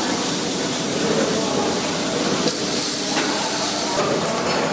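A steady, loud hiss spread across low and high pitches, with a few faint knocks.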